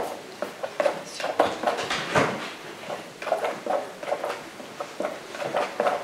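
Light clicks, taps and short scrapes of a palette knife picking up and working oil paint on a palette, irregular, a few a second.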